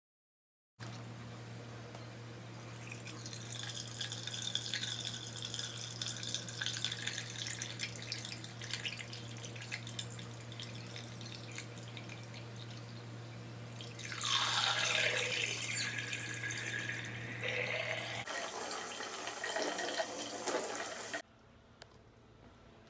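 Water running and splashing from a tap in a small room, over a steady electrical hum, louder for several seconds before it cuts off suddenly near the end.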